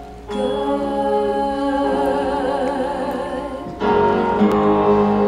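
Live musical-theatre music: a woman's voice holds long sung notes with vibrato over a pit orchestra, and the orchestra comes in fuller and louder near the four-second mark.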